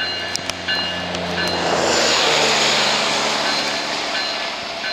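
Diesel freight locomotives running with a low engine drone. About two seconds in, a rush of passing-train wheel and rail noise swells over it. A short high ringing repeats throughout.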